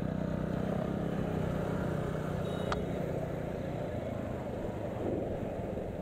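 Motorcycle running under way, its steady low engine hum mixed with wind and road noise; the hum fades out a little past halfway. A single short click sounds a little before halfway.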